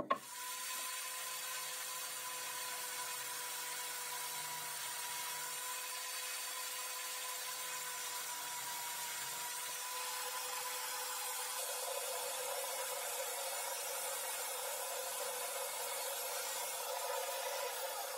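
Angle grinder motor running at a steady high speed, a drill bit in its spindle boring into a wooden disc. From about ten seconds in the sound grows louder and coarser as the bit works into the wood.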